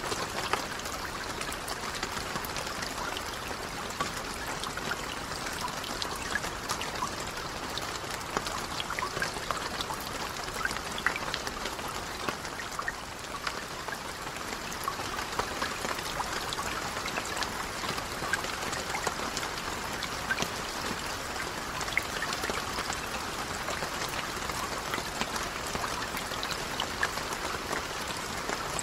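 Steady rain falling on a lake: an even hiss of water with many small, distinct drop impacts throughout.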